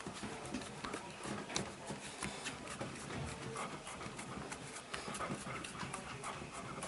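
Hands working on a person's body: skin and cloth rubbing, with irregular light taps and slaps several times a second.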